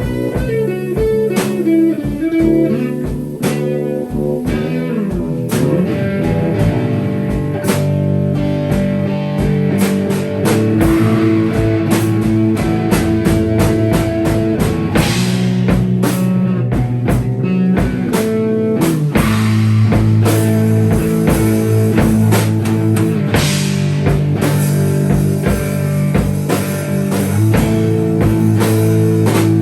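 Improvised band music: guitar playing held notes and chords over a drum kit, with sliding, bending notes in the first few seconds.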